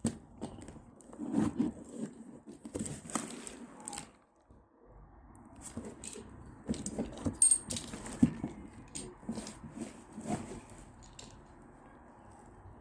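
Used metal door closers being handled and set down against each other: irregular knocks, clatters and metallic clinks, with a short lull about four seconds in.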